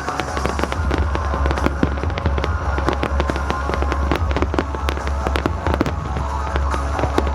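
A fireworks display going off in a dense, continuous string of sharp bangs and crackles.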